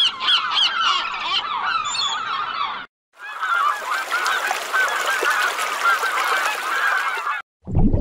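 A flock of gulls and greylag geese calling: shrill, overlapping squabbling calls from gulls fighting over bread, which break off briefly about three seconds in, then a dense, continuous chorus of honking and squawking calls that stops shortly before the end.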